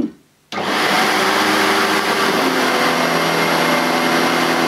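Sebo Automatic X1 upright vacuum cleaner switched on about half a second in and running loudly. Its steady tones change about halfway through as it sucks a hand towel into the brush roller, jamming the brush roll.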